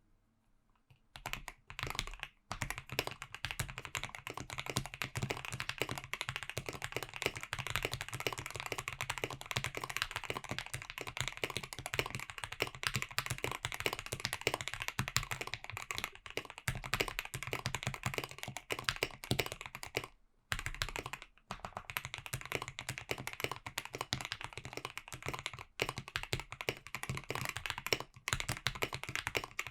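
Continuous fast typing on a KBDFans KBD67 Lite custom mechanical keyboard: lubed and filmed JWK Dogikon linear switches in a polycarbonate plate, under PBT keycaps. The keystrokes start about a second in and run on in a dense stream, with a short pause around two-thirds of the way through.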